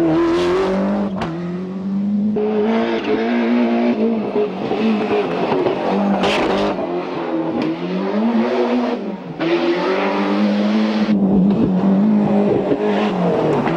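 Ford Escort RS Cosworth rally car's turbocharged four-cylinder engine revving hard. Its pitch climbs and drops again and again as it accelerates and lifts off for corners.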